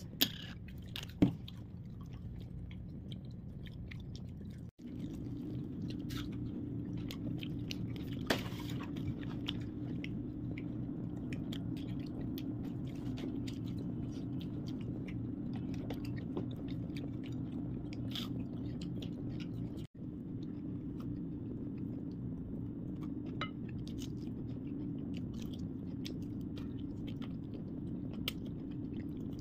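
Close-up chewing and biting of crispy fried chicken, with scattered crunches of the breaded skin, over a steady low hum. The sound cuts out for an instant twice.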